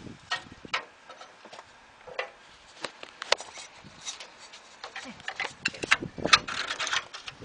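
Irregular clicks, taps and knocks of handling around a compact tractor's engine bay, getting denser and louder over the last couple of seconds.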